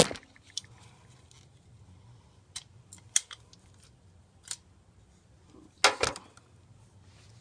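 Toy cap pistol: a few light sharp clicks, then a louder cap crack about six seconds in.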